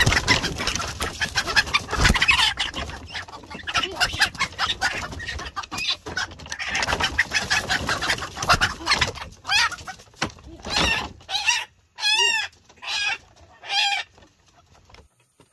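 Chickens clucking and squawking, first over a dense clattery rustle, then as about six separate squawks in the last few seconds.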